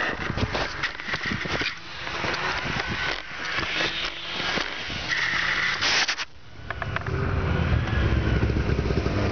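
Scraping and crackling as the camera rubs and tumbles in snow for about six seconds. It breaks off suddenly, and about a second later a snowmobile engine starts up and runs steadily.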